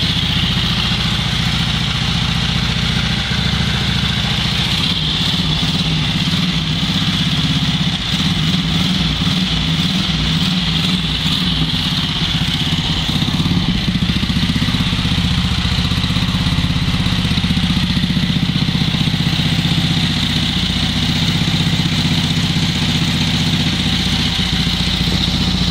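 Home-built motorcycle engine, an Ariel bottom end topped with half of a VW Beetle cylinder head, idling steadily.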